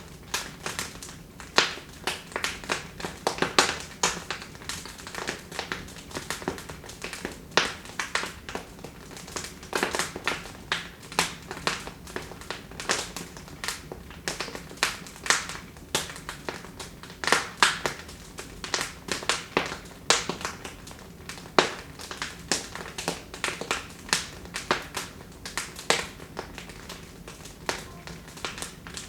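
Wood fire in a fireplace crackling, with frequent irregular sharp pops and snaps over a soft steady low rumble of the flames.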